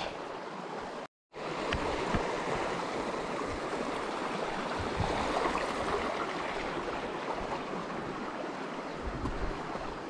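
Shallow mountain stream rushing and splashing over rocks, a steady wash of water noise. The sound cuts out completely for a moment about a second in.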